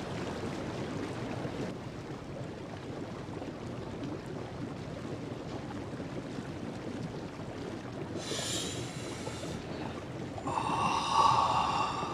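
Hot tub bubbling steadily as its water churns. Two brief high-pitched vocal sounds come through it, one about eight seconds in and a louder one about eleven seconds in.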